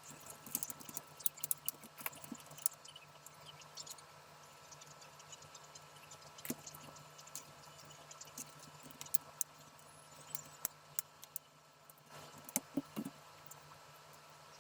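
Irregular small clicks and taps over a faint steady hum, with a busier run of them about twelve to thirteen seconds in.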